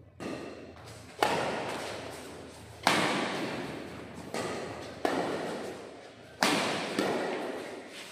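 Badminton rackets striking the shuttlecock in a doubles rally: about six sharp hits, one to one and a half seconds apart, each ringing on in the echo of a large hall.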